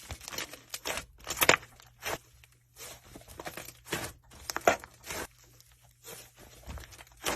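Slime being mixed and squeezed by hand: a run of irregular sticky squishes and crackles.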